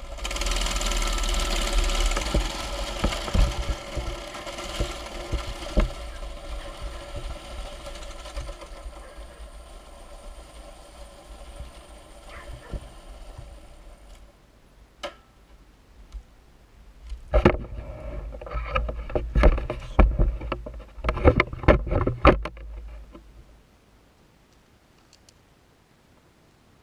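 Mini bike's small engine running under way, fading out about halfway through. It is followed by a cluster of sharp knocks and thumps, then quiet near the end.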